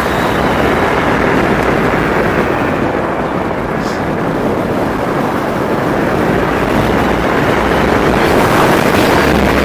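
Steady wind rush on the microphone and tyre noise from an E-Mobo DuoTork dual-motor electric scooter riding fast over a wet paved path.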